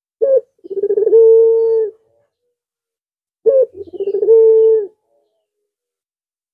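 Puter pelung (collared dove) cooing twice: each call is a short opening note, a quick stuttering roll, then a long held coo, the two calls about three seconds apart.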